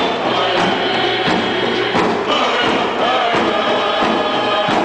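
Tribal group singing with a steady drum beat of about three strokes every two seconds, over crowd noise.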